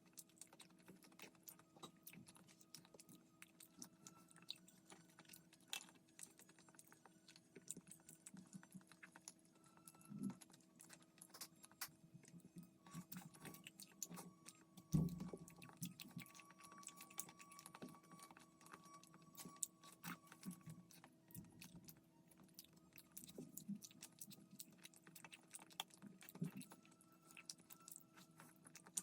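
Quiet eating sounds: soft chewing and small clicks of utensils and dishes over a faint steady hum, with one louder thump about halfway through.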